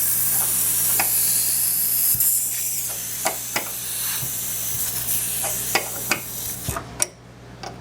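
Compressed air hissing from a leaking fitting on an air-bag suspension line, with irregular metal clicks and taps of a wrench tightening it. The hiss fades and cuts off suddenly about seven seconds in as the leak is sealed.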